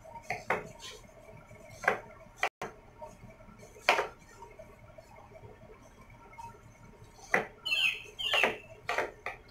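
Chef's knife cutting onion on a plastic cutting board: scattered sharp knocks of the blade meeting the board, irregular and a second or two apart, bunching together near the end. A short squeak comes about eight seconds in.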